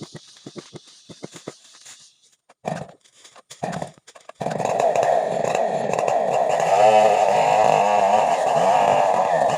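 Two-stroke chainsaw being started: after light clicking come two short bursts, then a little past halfway the engine catches and keeps running steadily, its pitch wavering slightly.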